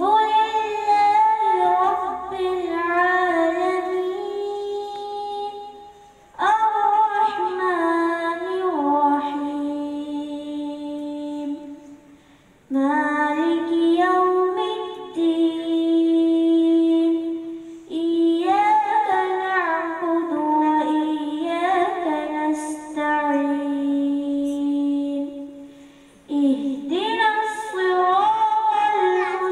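A girl's solo unaccompanied voice reciting in a melodic chant, with ornamented held notes in long phrases. There are short breaks for breath between the phrases, about five phrases in all.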